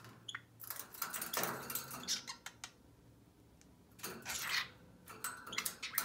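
Pet budgerigars playing on a metal wire cage top, with scratchy clicks and short chirps in three spells: about a second in, about four seconds in, and near the end.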